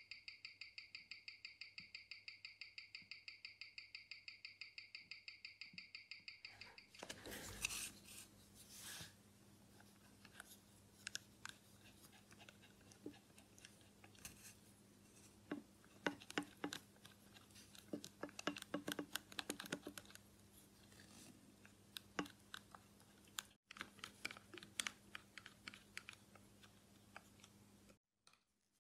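Seiko 7S36 automatic movement ticking on a Weishi No. 1000 timegrapher at 21,600 beats per hour, about six evenly spaced ticks a second, with no beat error. About seven seconds in the ticking stops, followed by irregular scratching and small clicks of a pen-style cleaning tool rubbing over the watch dial.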